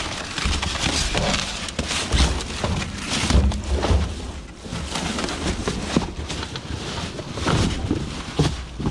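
Irregular knocks, clatter and rustling of rubbish being handled and searched through for scrap cable, over a low rumble on the microphone.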